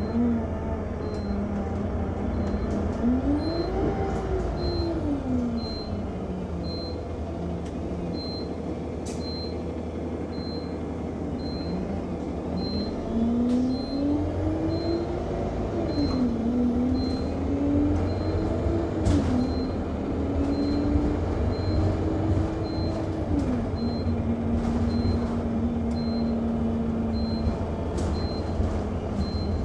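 Alexander Dennis Enviro 200 MMC single-decker bus heard from inside the cabin: the engine rises and falls in pitch several times as the bus speeds up and slows, while a high-pitched beep repeats about once a second without a break.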